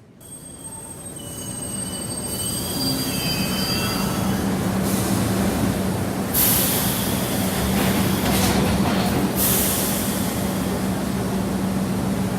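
Subway train running on the track: a high, wavering wheel squeal over the first few seconds as the rumble builds, then a steady loud rumble with a low hum and rushes of hiss.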